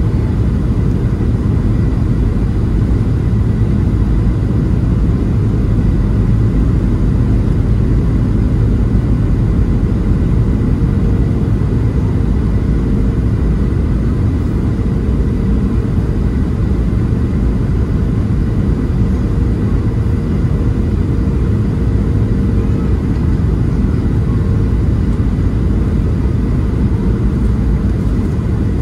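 Steady cabin noise inside a Boeing 737-700 descending on approach: the low rumble of its CFM56 turbofan engines and rushing airflow, with a faint steady hum.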